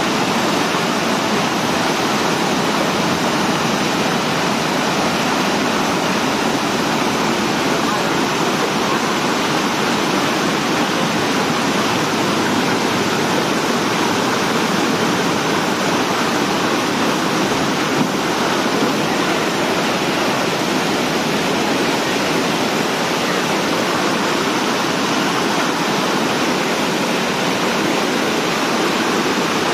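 Muddy floodwater rushing and churning over a low concrete dam spillway: a loud, steady rush of white water.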